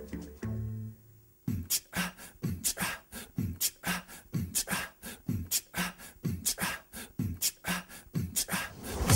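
A plucked bass music cue fades out, and after a second's near silence a sparse beatbox-style percussion track starts, with low kick thumps about twice a second under crisp clicks and snaps.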